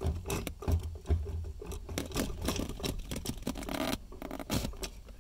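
Gloved hands working a plastic fuel pump module down into the fuel tank opening: irregular scraping, rustling and light plastic knocks.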